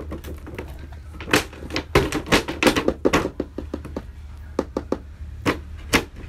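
A toddler's hand slapping and banging on a toy truck's packaging box, cardboard with a clear plastic window: a run of irregular taps and thumps, bunched in the middle and again near the end, over a steady low hum.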